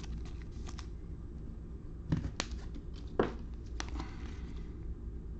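Trading cards being handled and flipped through, giving a few soft clicks and slides about two to four seconds in, over a low steady hum.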